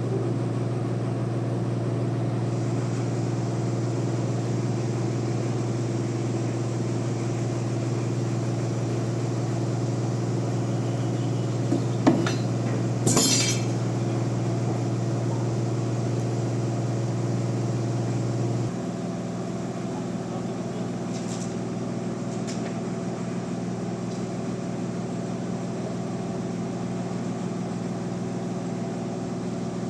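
Bandsaw mill machinery running with a steady low hum. Two sharp metallic clinks come about twelve and thirteen seconds in. The hum drops slightly in level and changes to a higher pitch about nineteen seconds in.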